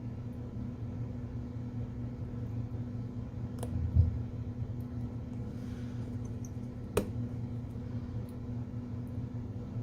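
Small-part handling during an iPhone repair: a faint click, a soft knock about four seconds in and a sharp click about seven seconds in, over a steady low background hum.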